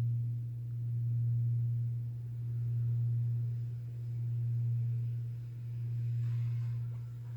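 Large Buddhist temple bell (bonshō) ringing on after a strike: a low, steady hum that swells and fades about every second and a half.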